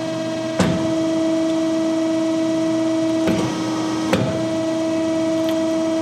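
Finn-Power hydraulic hose crimping machine running with a steady hum, crimping a fitting onto a hydraulic hose. There is a sharp click about half a second in and two short knocks a little after three and four seconds in.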